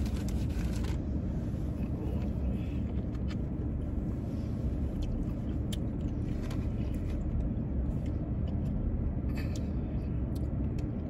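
Steady low hum of a parked car's idling engine heard from inside the cabin, with a few faint clicks and rustles.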